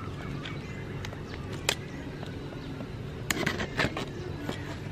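Snap-off utility knife cutting the packing tape on a cardboard box, with a few sharp scrapes and taps: one about two seconds in and a cluster near the end, over a steady low background hum.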